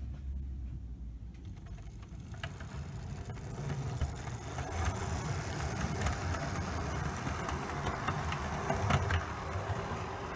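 Model InterCity 125 (HST) train running over the layout's track and points. Its motor and wheels make a steady rumble that builds as the rear power car passes close, with sharp clicks of wheels over rail joints and points.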